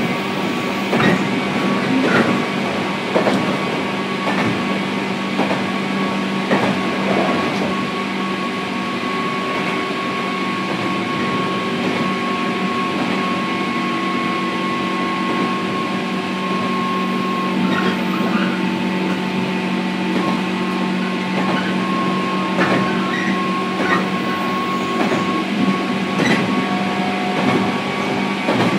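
Running sound inside a JR Kyushu 103 series 1500-subseries electric motor car (KuMoHa 103-1512) between stations: a steady hum from the drive over the rumble of the wheels on the rails. Sharp clacks from the rail joints come now and then, more often near the start and the end.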